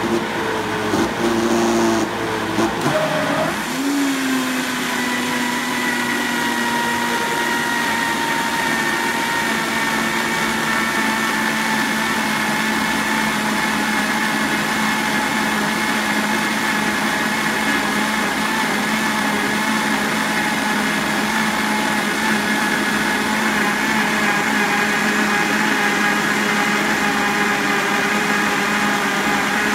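Vitamix blender motor switched on with a thick, fibrous load of beets and vegetables. It runs unevenly for the first three or four seconds while the fibres break up, then settles into a loud, steady tone as everything starts blending smoothly.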